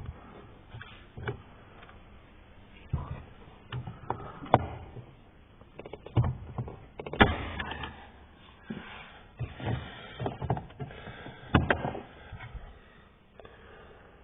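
Irregular plastic clicks, knocks and rustling of hands working a car door's power window switch and trim panel, as the switch is prised out or handled. The loudest knock comes about seven seconds in.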